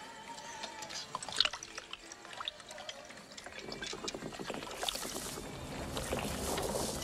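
Liquor poured from a bottle into plastic cups, with light clinks of glass. In the second half a rustling noise rises and grows louder.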